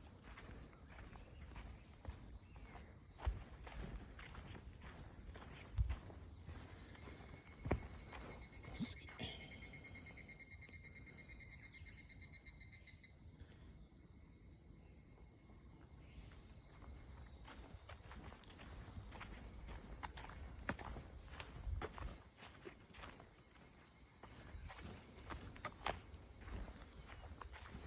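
A steady, high-pitched chorus of insects, with footsteps on a path as low scattered knocks. A fainter rapid pulsing trill joins about seven seconds in and stops some six seconds later.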